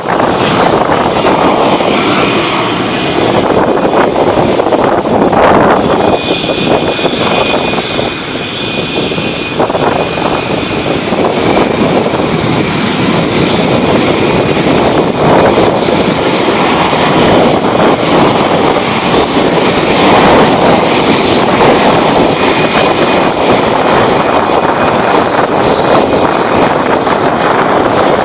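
Canadian Forces Snowbirds' CT-114 Tutor jets, each powered by a single turbojet, running loud during the team's takeoff. A steady, heavy rush carries high whistling turbine tones that come and go and drift slightly in pitch.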